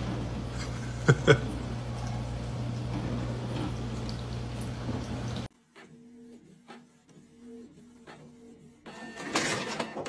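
Kitchen tap running steadily, with two short sharp sounds about a second in. After an abrupt change about five and a half seconds in, a Canon printer is printing: a quieter repeating whir with many small clicks, growing louder near the end as a sheet feeds out.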